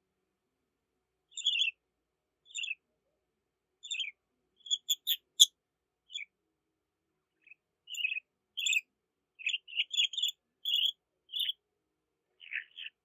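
Budgerigar chirping in short, high calls, one or a few at a time with gaps between, starting about a second in and coming closer together in the second half.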